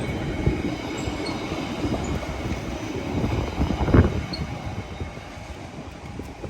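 A train running past on the rails, a dense rumble with rattling clicks that gets loudest about four seconds in and then fades away.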